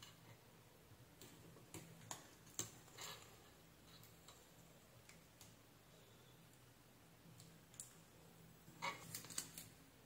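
Faint small clicks and rustles of fingers handling a little metal USB-C connector and foam sheets: a few scattered ticks in the first three seconds and a short cluster near the end, over a faint steady low hum.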